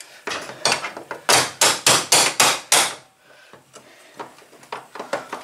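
A quick run of sharp metal-on-metal taps, about nine in two and a half seconds, as a small pin is knocked into the handle of a garage door lock. Then a few faint clicks follow.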